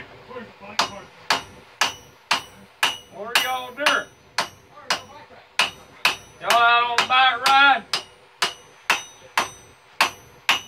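Hand hammer forging hot steel on an anvil: a steady run of blows, about two a second, each with a short metallic ring.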